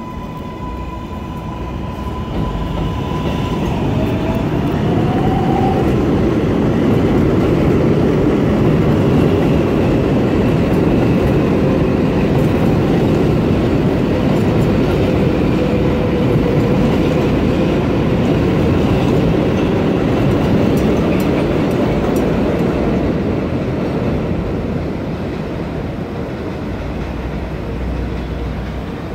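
New York City Subway R142A train's electric propulsion as it starts and accelerates: a steady whine at first, then a whine rising in pitch a few seconds in. Under it a heavy rumble of the train running on the elevated track builds, stays loud through the middle and eases off near the end.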